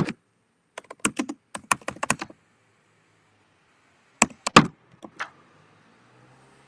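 Typing on a computer keyboard: short runs of keystrokes, then a few louder taps about four and a half seconds in.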